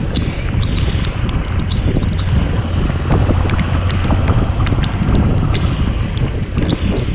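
Motorcycle riding in the rain: wind rushing over the microphone over the engine's steady low hum, with scattered sharp ticks of raindrops hitting.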